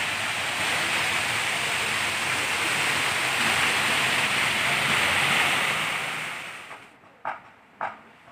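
Water pouring down a small rock cascade into a pool, a steady rush that fades out about six to seven seconds in. A few short, sharp clicks follow near the end.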